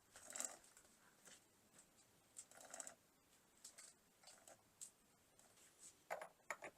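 Near silence broken by faint, scattered clicks and rustles of small handling noises, about six brief clusters, with the last two close together near the end.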